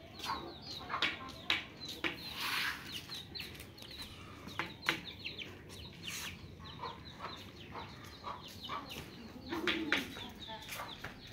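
Chickens clucking and peeping: many short, high calls scattered through, with small clicks between them.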